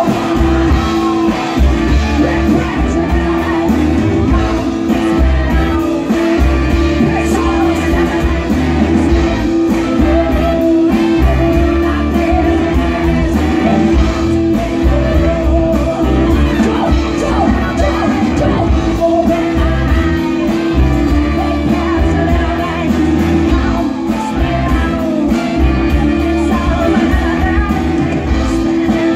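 Live brass-band music: saxophones, trumpets, sousaphone and drums playing a steady hip-hop and funk groove, with a vocalist singing over the band through the stage PA.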